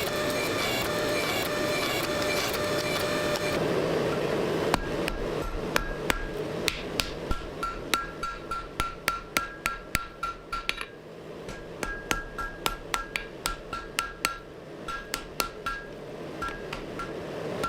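Hammer blows on steel over an anvil, about two or three a second with a short pause near the middle, each strike ringing. Before the hammering, a steady machine noise runs for the first few seconds and then stops.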